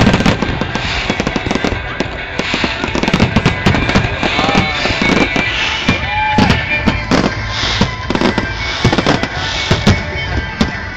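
Fireworks display: aerial shells bursting in quick, irregular succession, a dense run of bangs and crackles.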